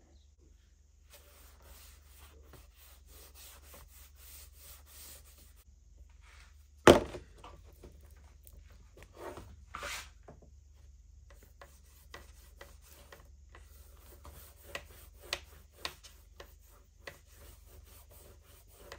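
Fingers rubbing wax conditioner into a leather strap: runs of short brushing strokes with a few light taps and clicks. One sharp knock about seven seconds in is the loudest sound.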